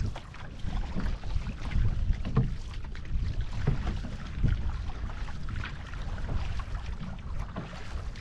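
Hawaiian outrigger canoe under paddle: the crew's paddle blades catch and pull through the water in repeated splashes over the rush of water along the hull. Wind rumbles on the microphone.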